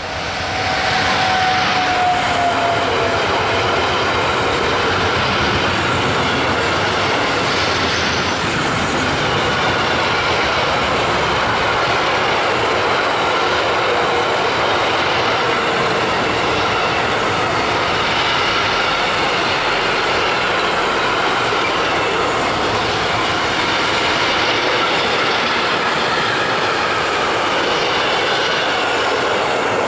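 Intermodal freight train of container and tank wagons rolling past at speed behind a Siemens ES64F4 EuroSprinter electric locomotive: a loud, steady rushing of steel wheels on rail. At the start a whine from the passing locomotive slides down in pitch.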